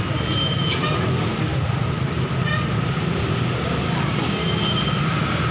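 Steady low engine rumble, with a faint high whine and a few light knocks over it.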